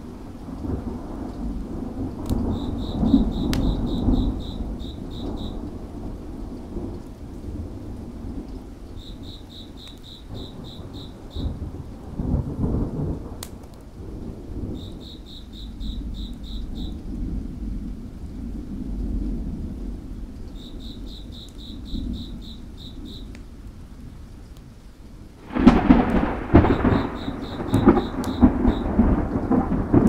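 Thunder rumbling low under steady rain, with a few sharp crackles from a wood fire. An insect chirps now and then in short trains of quick, evenly spaced pulses. About 25 seconds in, the rain and thunder suddenly swell much louder.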